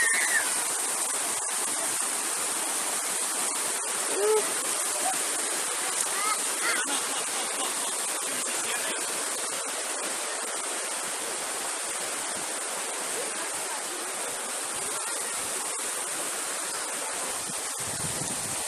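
Shallow river rushing over stones and rocks: a steady, even hiss of flowing water, with faint distant voices now and then.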